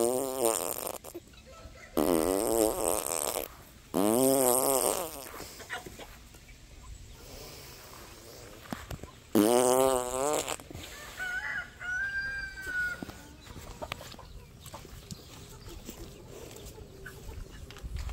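Rooster crowing four times, each crow a loud wavering call lasting about a second and a half; three crows come close together at the start and the fourth comes about nine seconds in.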